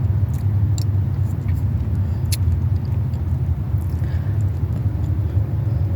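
Steady low rumble of outdoor background noise, with a few faint short clicks over it.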